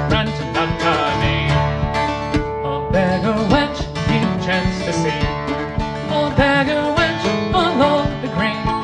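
Instrumental break of a Celtic folk song on a long-necked plucked string instrument, picked in a quick, even rhythm over low sustained notes.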